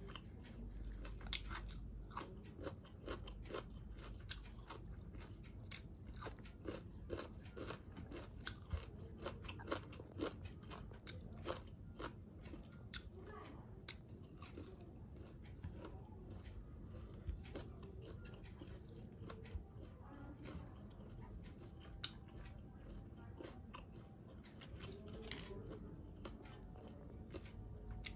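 A person chewing and biting crunchy food close to the microphone: frequent crisp crunches, thinning out about halfway through into slower chewing.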